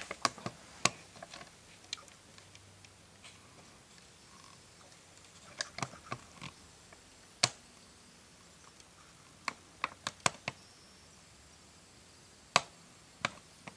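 Irregular sharp clicks and taps of hard plastic being handled, some in quick clusters, with quiet room tone between them.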